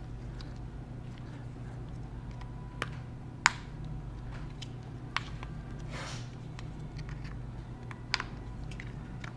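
Scattered light clicks and taps of small tools against phone parts as a smartphone is taken apart, the sharpest click about three and a half seconds in and a soft scrape near six seconds, over a steady low hum.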